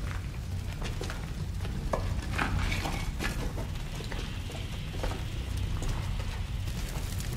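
Small fires crackling over a steady low rumble, with scattered small clicks and ticks and a few louder crackles about two to three seconds in.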